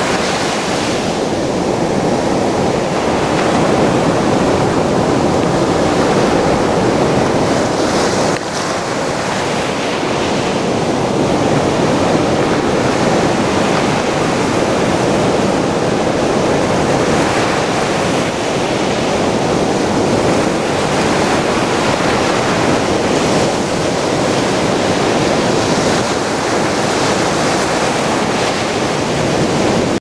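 Sea surf breaking on a sandy beach: a steady rushing wash of waves.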